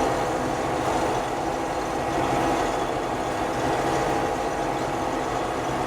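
Combine harvester running steadily while harvesting wheat: a constant engine and machine drone with no change in pitch.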